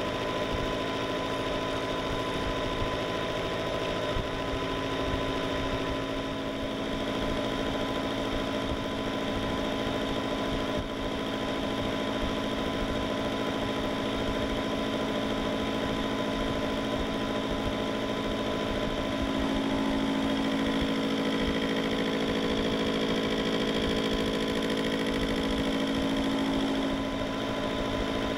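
Metal lathe running with a four-insert carbide fly cutter spinning in its chuck, taking a facing cut across a hardened steel axle cross pin. A steady mechanical hum with a few fixed tones, growing louder and more tonal for several seconds about two-thirds of the way through.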